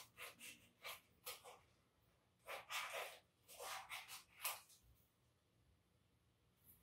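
Scissors snipping through a sheet of paper in quick short cuts, a few a second, with a pause in the middle; the snipping stops about four and a half seconds in.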